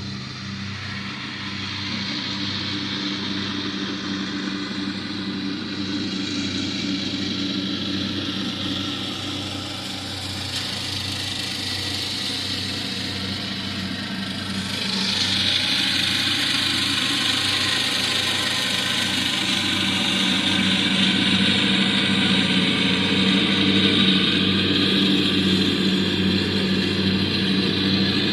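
Lawnmower engine running steadily and very loud, growing louder with a rising hiss about halfway through.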